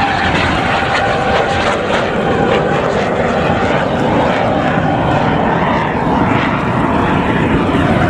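Formation of ten Aermacchi MB-339 jet trainers, each powered by a single Rolls-Royce Viper turbojet, flying toward the listener. Their engines make a steady, dense jet noise that grows slightly louder near the end.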